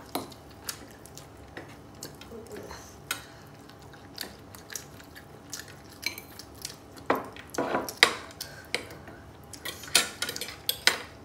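Metal spoon and fork clinking and scraping against a ceramic bowl and plates while eating, in scattered sharp clicks, the loudest about seven to eight seconds in and again around ten seconds in.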